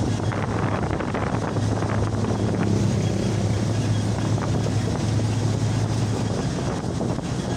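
Ford Ranger pickup cruising on the road, heard from inside the cab: a steady rushing road and wind noise with a low engine drone that drops away about six seconds in.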